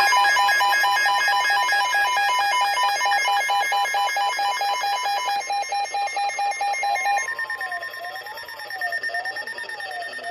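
Electronic weather-alert alarm: several layered tones beep rapidly for about seven seconds, then give way to a single tone sweeping slowly up and down about once a second.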